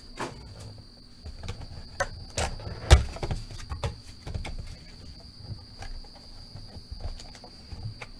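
Handling noise from a trading-card mega box and its packs being opened: scattered clicks, taps and rustles, the sharpest about three seconds in, over a steady faint high-pitched whine.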